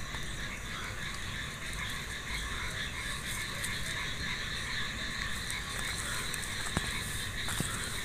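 Steady night chorus of calling frogs, with two sharp clicks near the end.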